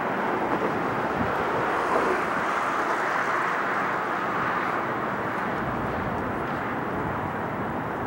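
Twin jet engines of an Airbus A330 climbing away after takeoff, heard from a distance as a steady roar that swells slightly a couple of seconds in.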